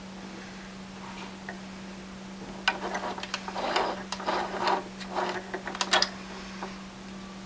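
Small clicks, taps and rustles from hands working at the bobbin area of a small plastic desktop sewing machine and drawing out the bobbin thread, bunched between about three and six seconds in, over a steady low hum.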